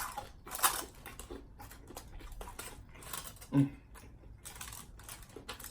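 Close-up chewing of crunchy food, with a few crisp crunches, the sharpest about half a second and three seconds in, and a brief closed-mouth 'mm' hum about three and a half seconds in.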